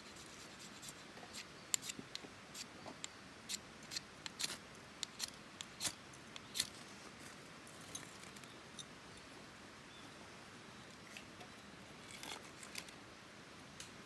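Ferro rod scraped hard with a striker, about a dozen quick sharp scrapes over the first six or seven seconds, throwing sparks onto Vaseline-soaked cotton and pine fatwood to start a fire. Later a few faint crackles come as the tinder catches and burns.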